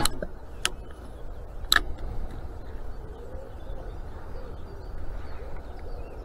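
A steady low rumble with three sharp clicks in the first two seconds, then a wood pigeon cooing faintly.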